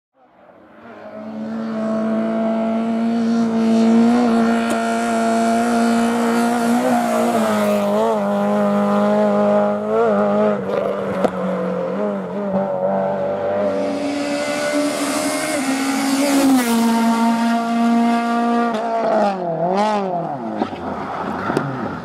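Peugeot 106 rally car engine running at high revs on a stage, fading in over the first two seconds. Its pitch dips and climbs briefly at gear changes and throttle lifts, and near the end the revs swing quickly up and down.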